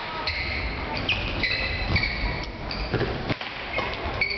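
Sports-hall sound of repeated short, high squeaks of court shoes on the floor, with a few sharp knocks over a low murmur of voices.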